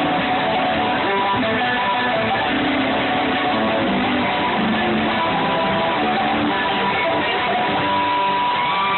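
Live bluegrass band playing an instrumental passage, with strummed guitar to the fore.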